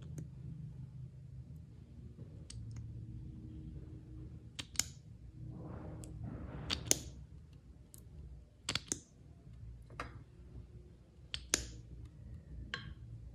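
Slime being worked by hand: scattered sticky clicks and pops, with a short squishing sound about six seconds in.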